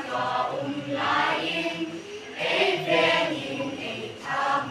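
Children's choir of boys and girls singing together in phrases about a second long, with short breaks between them.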